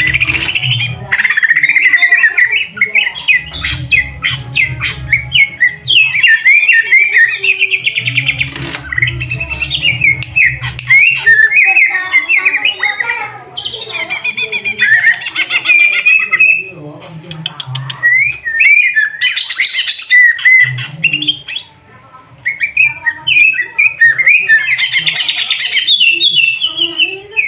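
Greater green leafbird (cucak ijo) singing loudly: a long, varied stream of quick chirps, slurred whistles and rapid trills with a few short pauses. An on-and-off low hum sits underneath, with a couple of sharp clicks.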